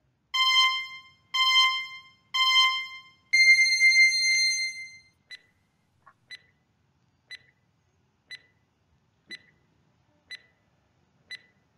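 Countdown timer sound effect: three short beeps a second apart, then one longer, higher beep, like a race start. It is followed by a short tick once a second as the timer counts down.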